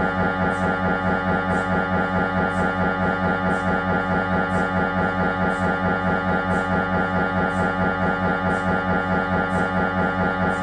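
Siemens Magnetom Avanto 1.5 T MRI scanner running an imaging sequence: its gradient coils give a loud, steady, buzzing tone that pulses fast and evenly, with a faint higher tick about once a second.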